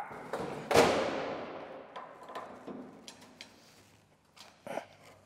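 Metal clang against the steel case of an old arc welder while a stubborn bolt is being worked on. One sharp clang about a second in rings and fades over a second or so, followed by a few light knocks and a dull thud near the end.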